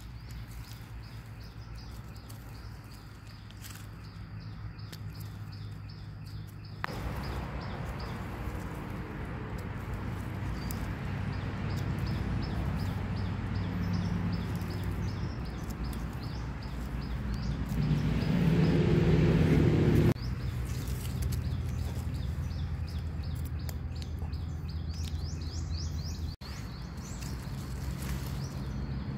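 Forest ambience with rows of short, high bird chirps repeating over a steady background noise. The background changes abruptly a couple of times, and a louder, lower noise lasts about two seconds around two-thirds of the way through.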